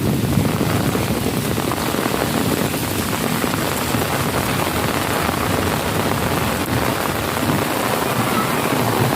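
Heavy rain pouring down, a steady, dense hiss of drops with no breaks.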